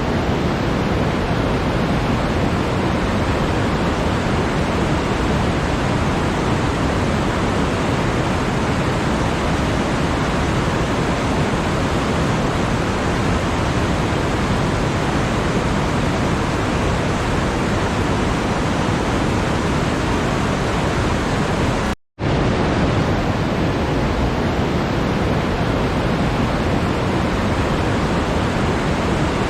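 Steady, even rushing noise with no tones or events in it, spread across low and middle pitches. It cuts out to silence for a split second about two-thirds of the way through, then resumes unchanged.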